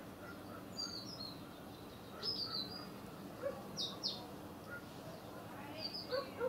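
Small birds chirping: four short, high calls a second or so apart, over a faint steady background.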